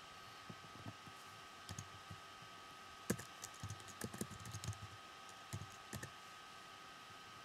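Computer keyboard being typed on: a quick run of keystrokes from about three to six seconds in, after a few faint scattered clicks, over a faint steady hum.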